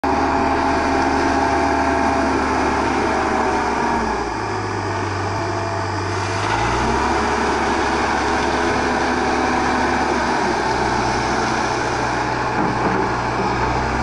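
Schwing Stetter SLM 4000 self-loading concrete mixer's diesel engine running steadily. Its engine note changes about four seconds in and again a couple of seconds later.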